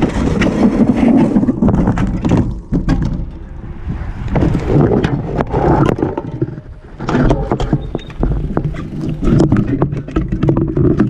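Road bicycle crash and its aftermath: a rush of scraping noise at first, then irregular knocks, clicks and rattles as the fallen bike and its mounted camera are moved about on the road.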